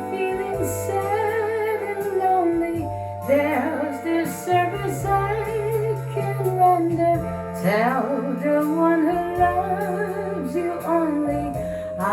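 Recorded music played through Totem Model 1 loudspeakers driven by a Krell FPB 350MCx amplifier: a woman singing with vibrato over held bass notes.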